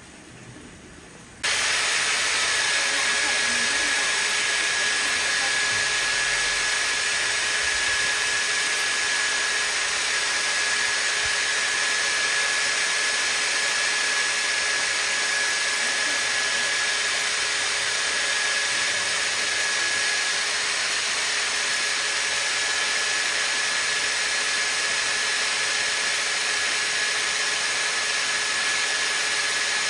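A machine's motor starts abruptly about a second and a half in and runs steadily with a constant high whine over a hiss.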